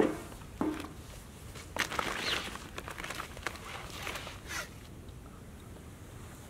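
Split firewood being handled at a steel fire ring: a few short knocks and rustles as logs come out of a plastic bag and are set on the grill grate, with footsteps on pine needles. It goes quieter for the last second or so.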